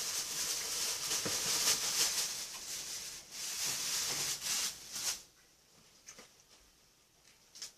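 Thin clear plastic bag crinkling and lettuce leaves rustling as the leaves are pulled out by hand, stopping about five seconds in.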